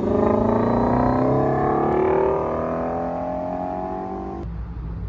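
Ford Mustang accelerating away, its engine note climbing steadily for about four seconds. It cuts off abruptly and a quieter low rumble follows.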